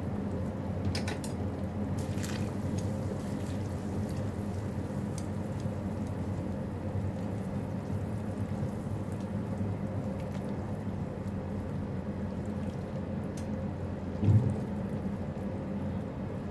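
Water trickling and dripping over a steady low hum, with a few light clicks near the start and a single knock about fourteen seconds in.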